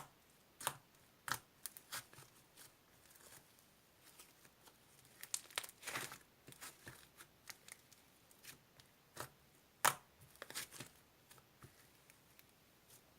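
Irregular crinkling and tearing of paper or plastic being handled, with scattered sharp little clicks and taps; the loudest snap comes about ten seconds in.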